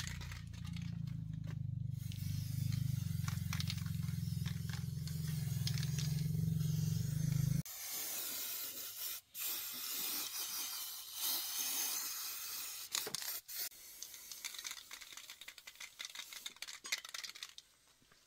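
An aerosol spray-paint can shaken with its mixing ball rattling, then sprayed in long hissing passes with short breaks, coating an engine in silver paint. Under the first seven seconds or so runs a steady low hum that cuts off suddenly.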